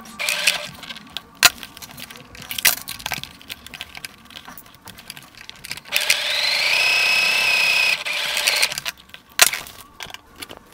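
Sewing machine stitching zipper tape onto heavy cotton denim in one run of about two and a half seconds, starting about six seconds in. Its whine climbs as it speeds up and then holds steady. Scattered sharp clicks and knocks of handling come before and after the run.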